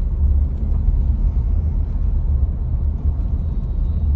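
Steady low road and engine rumble heard inside the cabin of a car driving slowly along a residential street.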